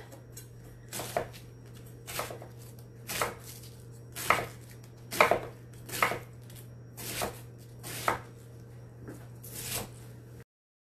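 Chef's knife chopping green cabbage on an end-grain wooden cutting board, about one chop a second, with a low steady hum underneath. The sound cuts off suddenly near the end.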